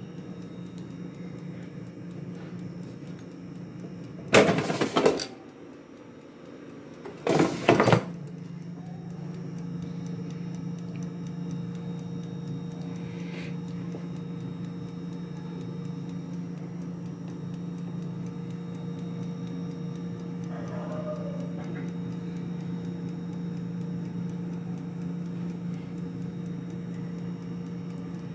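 Air fryer running with a steady hum that gets louder about eight seconds in. Two loud handling clatters come about four and seven seconds in.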